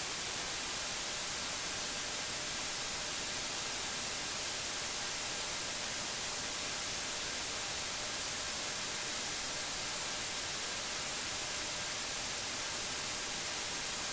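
A steady, even hiss like static, with no change in level and no other sound in it.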